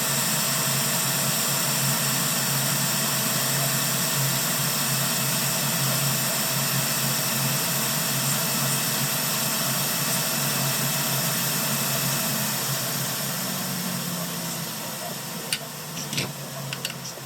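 Hot air rework station blowing steadily, a hiss with a low hum under it. It eases off from about twelve seconds in, and a few light clicks and taps follow near the end.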